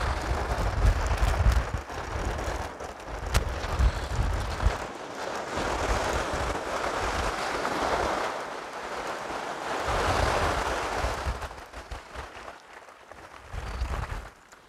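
Small waves breaking and washing over a shingle beach, the surf rising and falling in swells. Gusts of wind buffet the microphone, heaviest in the first few seconds.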